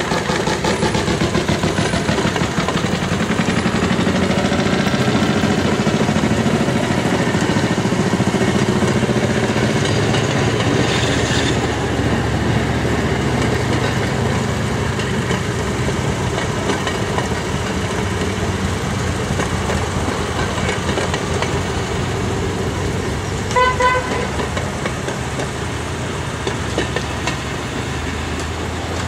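A procession of small railway motor cars (track speeders) running along the track, their small engines chugging steadily as they pass one after another. About 24 s in, one of them gives two short horn toots.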